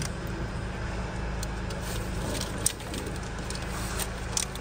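A few light clicks and taps of hand tools and engine parts being handled under the bonnet, over a steady low hum.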